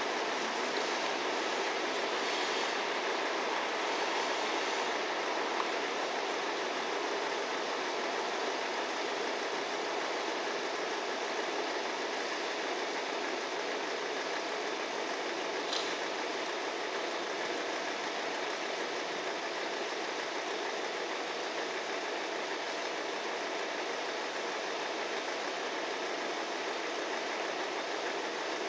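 EF65 electric locomotive pair rolling away over the rails, its steady wheel-and-rail noise slowly fading into the distance, with faint high-pitched wheel squeals in the first few seconds on the curve.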